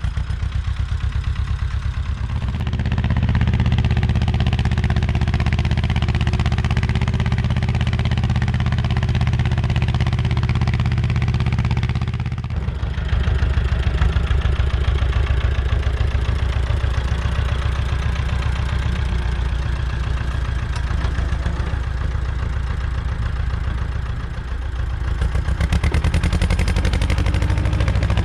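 Ursus C-330 tractor's two-cylinder diesel engine running steadily while working in the field. Its note changes abruptly about halfway through and dips briefly near the end.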